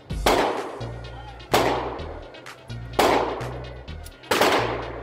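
Handgun shots at an indoor range: four single shots about a second and a half apart, each followed by a reverberating tail off the range walls.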